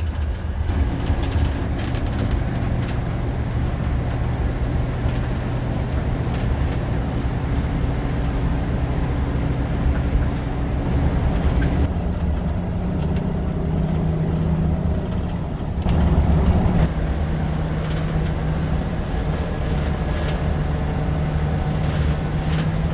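Motorhome engine and road noise heard from inside the cab while driving: a steady low drone with an engine hum that shifts in pitch a couple of times.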